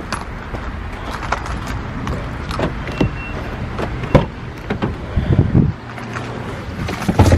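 Footsteps and the rustle of a handheld camera while walking to a car, then the driver's door handle of a Nissan is pulled and the door opens with a sharp knock about four seconds in. Further knocks follow as the door swings open, and there is a short high beep about three seconds in.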